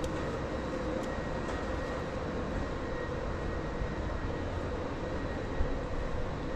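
Steady urban background drone: a low, even rumble with a faint constant high whine over it, with no distinct events standing out.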